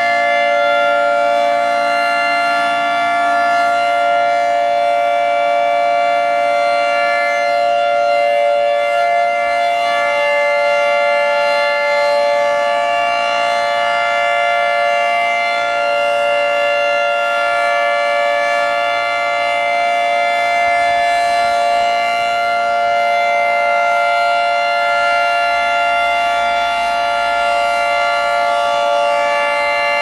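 Outdoor tornado warning sirens sounding a loud, steady tone that holds its pitch without rising or falling.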